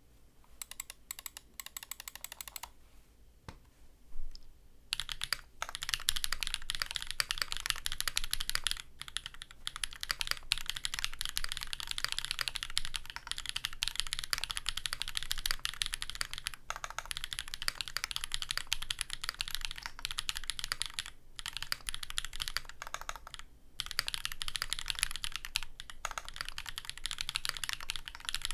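Typing on a Matrix Navi custom mechanical keyboard with a non-flexcut aluminium plate, Sarokeys Strawberry Wine linear switches lubed with Krytox 205g0, and DCX keycaps. A few scattered keystrokes and a short pause give way, about five seconds in, to fast continuous typing with brief breaks.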